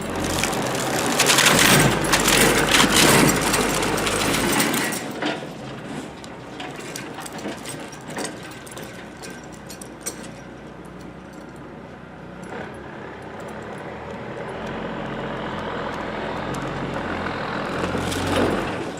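Truck engine working hard under load as it pulls on a tree with a chain. It is loudest for the first four seconds or so, eases off, then builds steadily again until near the end.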